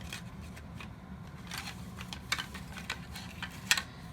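Scattered light clicks and taps as the plastic parts of a disassembled toy robot are handled, about half a dozen, the loudest near the end, over a steady low hum.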